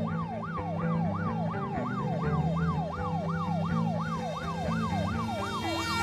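Emergency vehicle siren in fast yelp mode, sweeping up and down about three times a second over a low steady hum.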